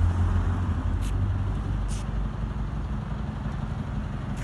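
A steady low engine rumble from a motor vehicle or machine running nearby, strongest in the first second and a half and then easing off, with a few faint light ticks.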